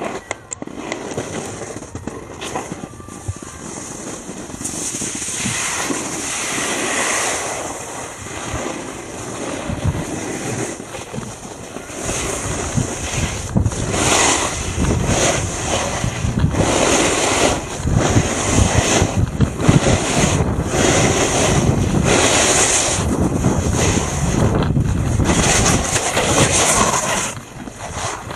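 Snowboard edges scraping over snow through a run of turns, swelling and fading every second or two, mixed with wind rushing over the camera microphone. It grows louder about halfway through as speed picks up and drops off sharply just before the end.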